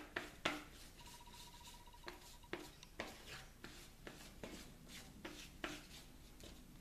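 Plastic body-filler spreader scraping and folding two-part short-strand fiberglass filler with its hardener on a sheet of cardboard, mixing it: faint, irregular scrapes, roughly two a second.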